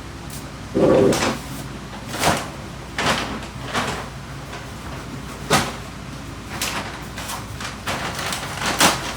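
Irregular knocks and clunks of things being handled, like cupboard doors and household items, about eight in nine seconds, the loudest and deepest about a second in.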